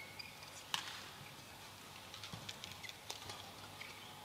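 Badminton rally: rackets hitting a shuttlecock, the sharpest hit about a second in, with brief high squeaks of court shoes and light footsteps on the court.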